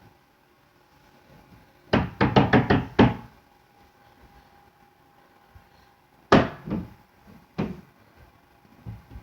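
Loud banging knocks: a rapid run of about six knocks about two seconds in, then three slower, separate bangs a few seconds later.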